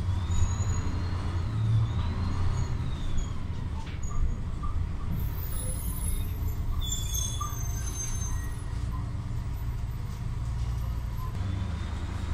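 Inside a moving city bus: the engine's steady low rumble and cabin noise. A faint high whine wavers up and down over the first three seconds, and brief high squeals come around the middle.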